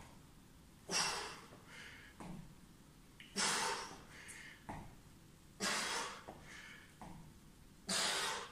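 A man breathing hard under exertion during weighted back lunges. A forceful breath out comes about every two seconds, four in all, each followed by a softer breath.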